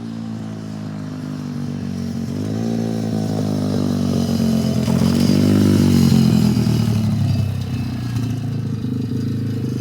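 SSR 125cc dirt bike's single-cylinder four-stroke engine running under a beginner rider, speeding up and growing louder to a peak about halfway through, then easing back to a steadier note.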